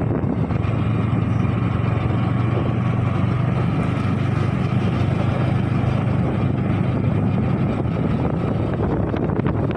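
Motorcycle engine running steadily while riding along a road: a constant low hum over a steady rushing noise.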